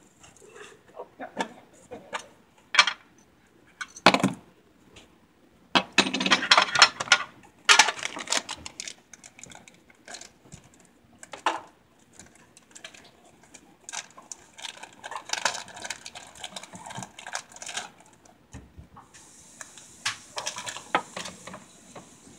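Fidget spinners clicking and clattering as they are handled and set down on a wooden table, with stretches of plastic packaging crinkling as a package is torn open.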